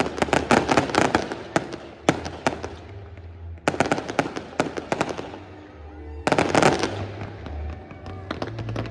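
Fireworks display: rapid bangs and crackling that come in clusters. There is a dense barrage at the start, a shorter burst about four seconds in and another at about six and a half seconds, with music playing underneath.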